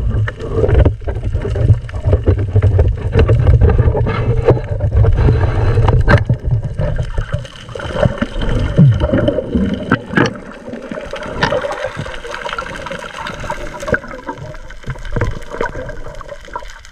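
Water heard through an underwater camera during a night spearfishing dive: a heavy, muffled low rumble of moving water that eases about halfway through, with gurgling and a few sharp clicks.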